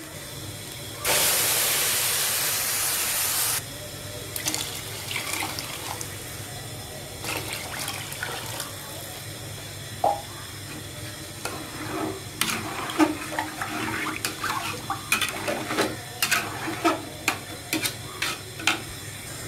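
Water poured into an aluminium pot of fried rice: a steady rush starting about a second in and lasting about two and a half seconds. Then a metal spatula stirs the rice and water, with scattered clinks and scrapes against the pot.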